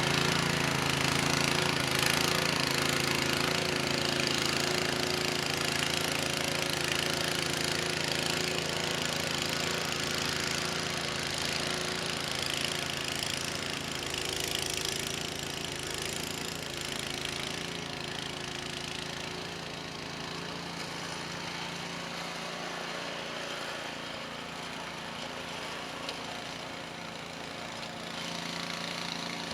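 Cub Cadet 2X 524 SWE two-stage snowblower engine running steadily while it clears heavy wet snow. It grows gradually fainter as it moves away, then louder again near the end.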